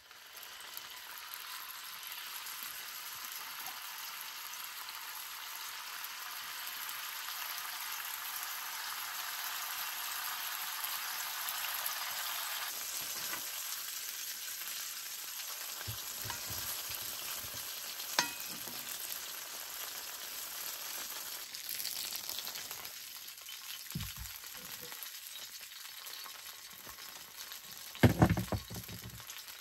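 Sausages sizzling steadily in hot fat in a cast-iron skillet, with a few short knocks and the loudest clatter near the end.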